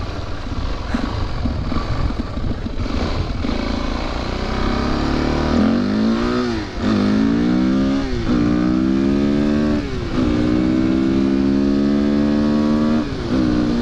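Dirt bike engine accelerating through the gears. Its pitch climbs and drops back sharply at each shift, three times from about halfway in, then holds a high steady note and falls away again near the end. Wind noise on the microphone is there throughout.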